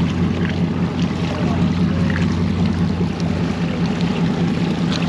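Inboard engines of a 31-foot Bertram sportfishing boat running in gear at low speed, a steady low drone, with water splashing and sloshing alongside the hull.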